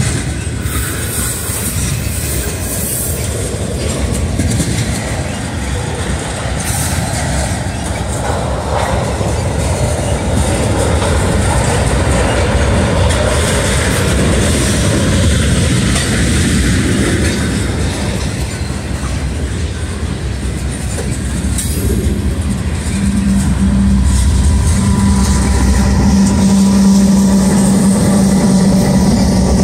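Freight train of tank cars rolling past close by, the wheels clattering over rail joints. From about three-quarters of the way in, a Canadian Pacific GE AC4400CW diesel locomotive comes past, adding a steady low engine hum.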